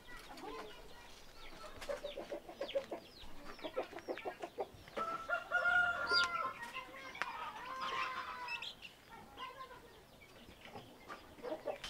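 Chickens clucking, with a rooster crowing around the middle.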